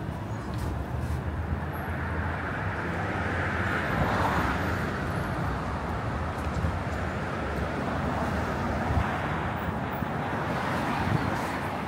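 City street ambience with steady road traffic noise, swelling about four seconds in.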